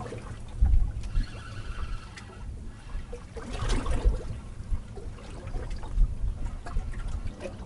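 Water lapping against the hull of a drifting fishing boat, with irregular low thumps.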